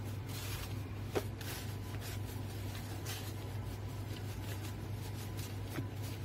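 Plastic-gloved hands kneading and folding soft bread dough on a silicone baking mat: faint rustling of the glove plastic and soft squishes of dough, with one short tap about a second in, over a steady low hum.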